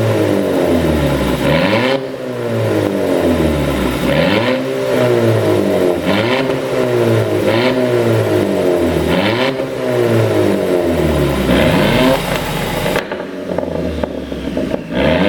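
The 2013 Audi A5 2.0 TFSI Quattro's turbocharged four-cylinder engine, ECU-tuned for exhaust pops, being blipped again and again, rising and falling about once every second and a half. Sharp exhaust pops and crackles follow the revs as the throttle closes. Near the end the engine drops back briefly before one more blip.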